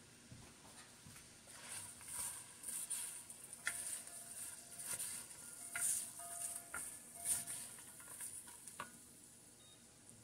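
Chopped onion, celery, carrot and bacon sizzling softly in melted butter in an enamelled Dutch oven, with a wooden spoon stirring them. The sizzle swells as the vegetables are turned, and the spoon scrapes and knocks against the pot several times.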